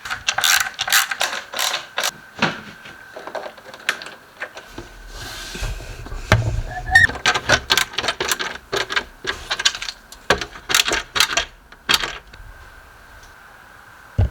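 Runs of quick ratchet clicks from a screwdriver driving screws into flat-pack furniture, with short pauses between runs and a low rumble of handling in the middle.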